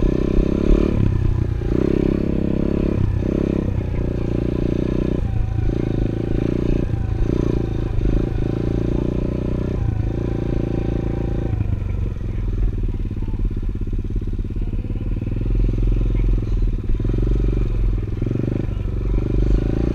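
A 110cc pit bike's single-cylinder four-stroke engine running under a rider. In the first half the throttle is rolled off and back on about once a second, and it is held more steadily from about twelve seconds in.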